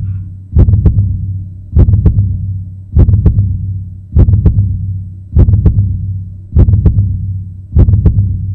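Slow, steady heartbeat sound effect, loud: a double thump about every 1.2 seconds, seven beats in all, each fading into a low hum.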